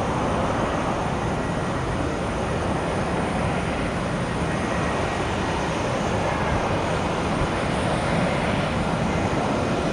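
Jet airliner engine noise, heard as a steady, even rush of sound with no sudden changes.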